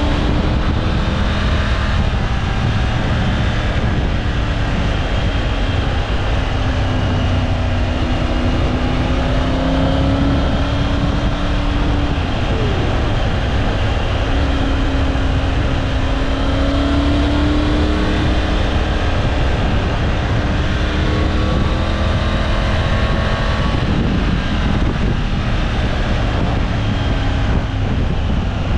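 Triumph Tiger 900 Rally Pro's three-cylinder engine running under way, its note rising and falling gently several times with the throttle, over a steady low rush of wind noise.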